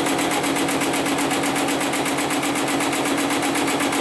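HIGHTEX #75008 heavy-duty programmable pattern sewing machine running steadily, stitching a pattern through layered webbing straps at a rapid, even stitch rhythm.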